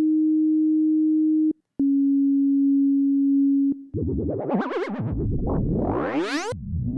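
Software synthesizer playing a plain sine-like tone twice, the second a little lower, each with a click where it starts and stops. From about four seconds in, layered synth sounds glide up and down in pitch and build into a rising sweep that cuts off suddenly. Another sweep starts near the end: the raw layers of a designed whoosh.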